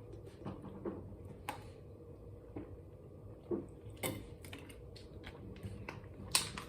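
Faint close-up eating sounds: chewing and mouth noises with scattered small clicks and ticks.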